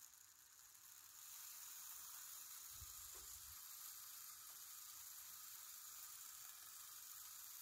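Near silence: a faint steady hiss, with a soft low thump about three seconds in.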